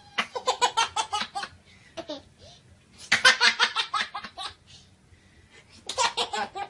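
A baby laughing in three fits of quick, repeated laughs, each about a second long.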